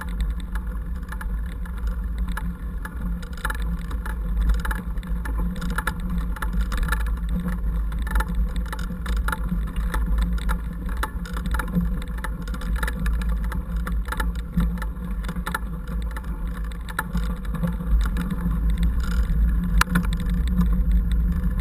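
Mountain bike riding over a rough dirt track, with many small rattles and knocks from the bike and its handlebar camera mount over a steady wind rumble on the microphone.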